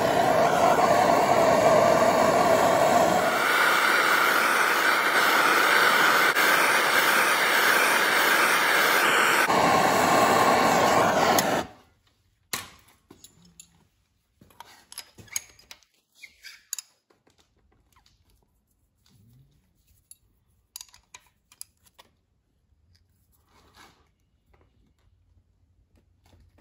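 Handheld gas torch flame hissing steadily while heating a rusted, seized exhaust manifold stud in the cylinder head to break it loose. The hiss steps up in pitch a few seconds in, drops back, and is shut off suddenly at about twelve seconds. A few faint clicks and taps follow.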